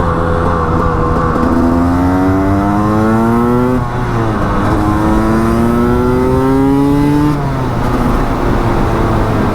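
Two-stroke motorcycle engine pulling up through the revs, its pitch climbing steadily for a couple of seconds. It drops briefly about four seconds in, climbs again, then falls back to a lower steady note near the end.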